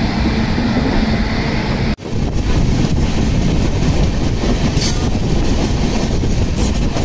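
Moving train heard from an open coach doorway, wheels running on the rails. After a brief cut about two seconds in, another train's coaches pass close alongside on the next track, adding their own wheel-and-rail noise.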